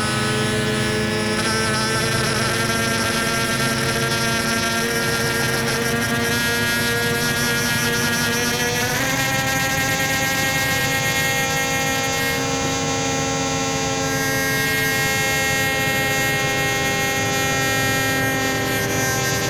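Modular synthesizer playing a dense, sustained drone of many held tones. About nine seconds in the sound changes abruptly, and several tones then slide slowly downward in pitch.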